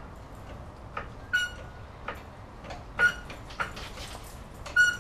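A hydraulic floor jack's handle being worked, giving short squeaks, three of them sharp and about a second and a half apart, with lighter clicks between.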